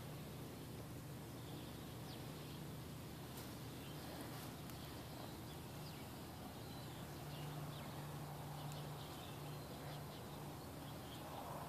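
Faint, scattered high animal chirps and squeaks over a steady low hum.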